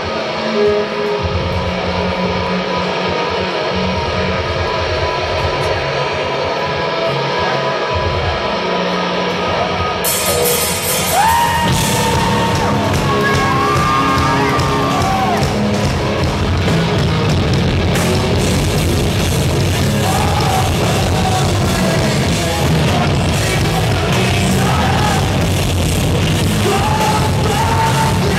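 Live heavy rock band playing loud through a club PA. The opening is thinner; the full band with cymbals comes in about ten seconds in, and vocals follow soon after.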